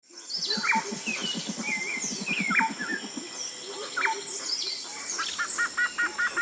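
Dawn chorus of several birds: scattered chirps and whistles, with a fast low pulsing call through the first three seconds. About five and a half seconds in, a rapid run of repeated chirps begins.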